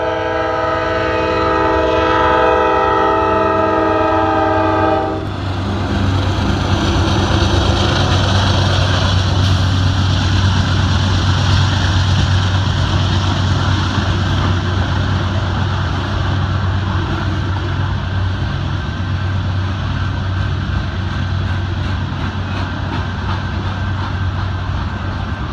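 CSX freight locomotive's multi-chime air horn sounding one long chord that cuts off about five seconds in. The single diesel unit and its string of freight cars then roll past with a steady rumble and clatter of wheels on the rails.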